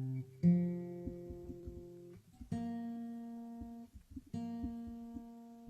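Acoustic guitar strings plucked and left to ring one at a time while the guitar is checked for tuning: three separate notes about two seconds apart, each fading away, with faint clicks of handling in between.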